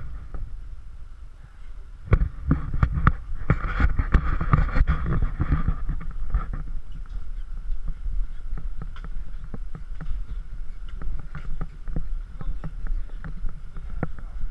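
Walking footsteps on brick paving, a knock about every half second, over a steady low rumble of wind on a body-worn GoPro's microphone.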